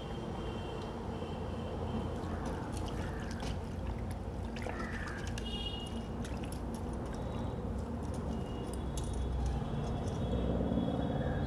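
Water sloshing and splashing in a steel bucket as hands rub and turn raw green mangoes, with scattered light clicks and knocks.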